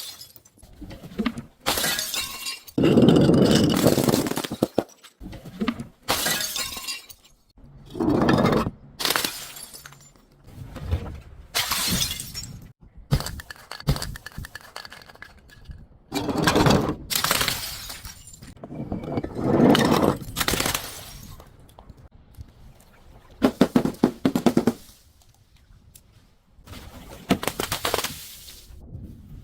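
Glass bottles breaking and being crushed: a series of separate crunching, shattering bursts every second or few, some with rapid crackling as the glass fragments grind.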